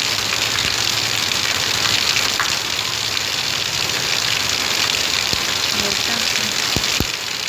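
Heavy rain pouring steadily in a loud, even hiss, with an engine idling underneath in the first few seconds. Two sharp knocks come near the end.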